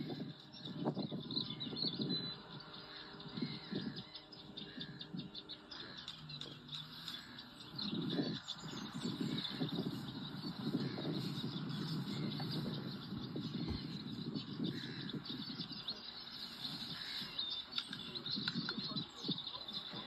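Small songbird chirping and singing in short repeated phrases, over a low rumbling noise.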